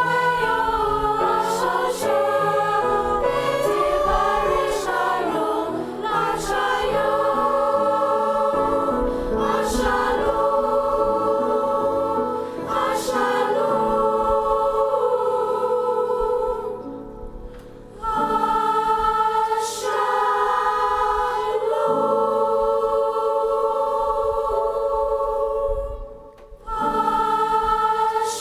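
Choir singing a holiday piece in held, sustained chords, with two brief pauses between phrases, one a little past halfway and one near the end.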